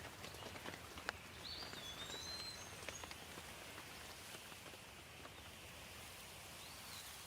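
Steady light rain, with scattered drips ticking mostly in the first few seconds, and a bird's whistled gliding call about one and a half seconds in and a short one near the end.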